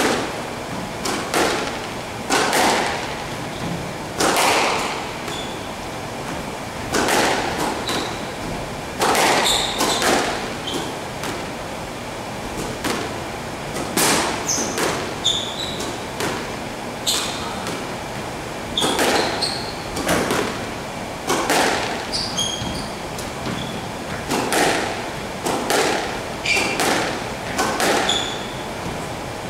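Squash rally: the ball cracking off rackets and the walls every second or two, each hit ringing briefly in the enclosed court, with short high squeaks of shoes on the wooden floor between shots.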